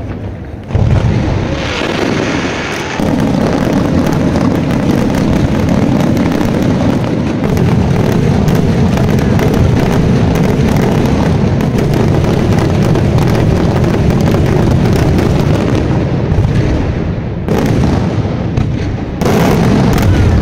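Daytime fireworks display: a dense, continuous barrage of bangs and crackling bursts, easing briefly about a second in and again near the end.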